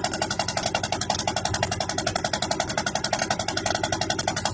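Fishing boat's engine running steadily with a rapid, even throb.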